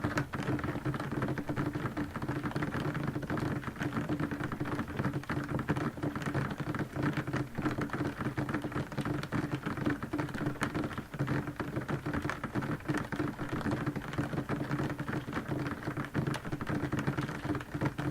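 Heavy rain pelting a window pane, heard from inside the room: a dense, steady patter of countless drops hitting the glass.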